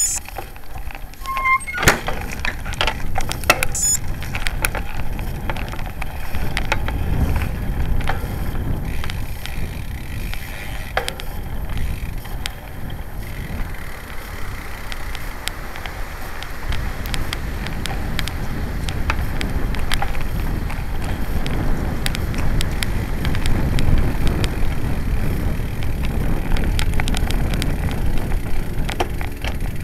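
Road bike being ridden with the camera mounted on it: wind buffeting the microphone and tyre rumble over gravel and brick paving, with rattling clicks and knocks from the bike, thickest in the first few seconds.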